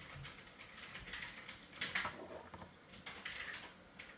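Faint, irregular light taps and scrapes of a small paintbrush dabbing into a tealight's melted wax and against its aluminium cup, slightly louder about two seconds in.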